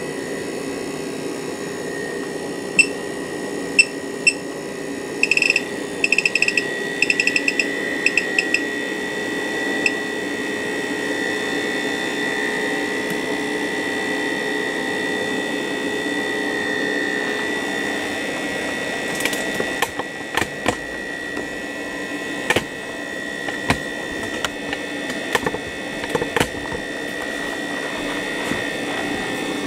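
Bedini self-oscillating fan motor running with a steady high-pitched whine. In the first third the bench power supply gives a series of short electronic beeps as its buttons are pressed to raise the voltage, and later come scattered sharp clicks.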